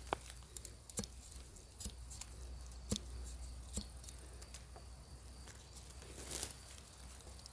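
Ontario Bushcraft machete blade striking and cutting wood in short, light cuts, about one a second, with a brief rasping stroke near the end.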